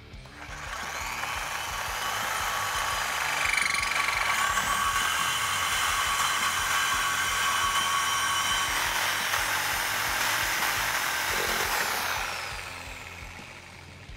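Reciprocating saw with a thin-kerf metal blade cutting through a steel exhaust pipe. It runs steadily for about eleven seconds and stops as it finishes the cut.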